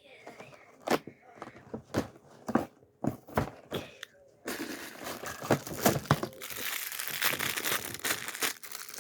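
Hands handling a Lego advent calendar: several separate clicks and taps of cardboard and pieces, then from about four and a half seconds in a continuous crinkling and tearing of the packaging as it is opened.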